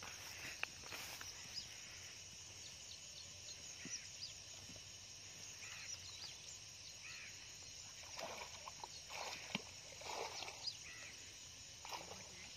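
Quiet rural outdoor ambience: a steady faint high hiss with scattered small chirps, and a few slightly louder faint sounds in the second half.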